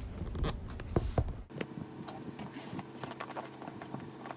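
Handling noises of a cardboard box being moved on the floor: a few loud knocks and thumps in the first second and a half, then lighter clicks and taps.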